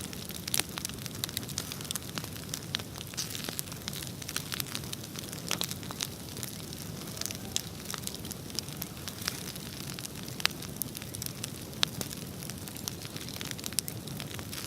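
Bonfire crackling: frequent, irregular sharp pops over a steady low rumble of burning.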